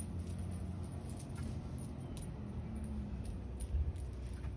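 Steady low outdoor rumble with a few faint, light jingles, typical of a dog's collar tags as it trots back with the ball.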